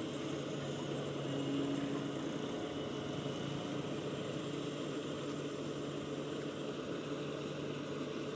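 Crawler rice combine harvester running steadily while it cuts rice: a constant engine drone with the whir of its machinery.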